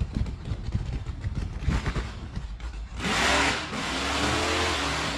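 Wind gusting on the microphone, then about three seconds in a van's engine revs up loudly as it approaches, its pitch rising.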